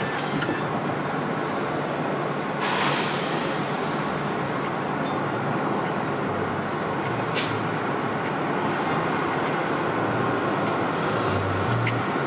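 Steady road and engine noise heard from inside a moving car. A brief louder rush of noise comes about 3 s in and a shorter one about 7 s in.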